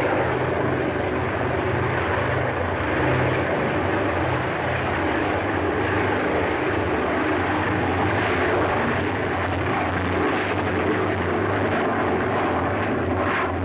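Short Solent flying boat's four Bristol Hercules radial engines running steadily with a dense propeller drone as it taxis on the water.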